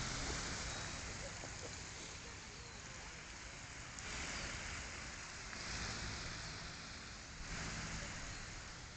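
Wind rushing over a phone's microphone outdoors, a steady noise with low rumble that swells about four seconds in and again near the end.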